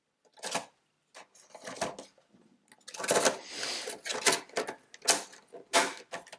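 Cards and a plastic box insert being handled inside a board-game box: a string of irregular light clicks and taps, with a longer scraping rustle about three seconds in as a large card is slid out.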